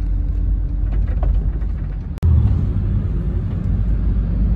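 Steady low road rumble of a moving car, tyre and engine noise heard inside the cabin. It cuts out for an instant about two seconds in and comes back a little louder.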